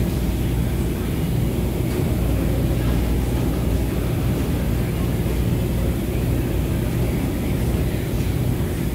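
Commercial laundromat washers and dryers running: a steady low rumble and hum that does not change.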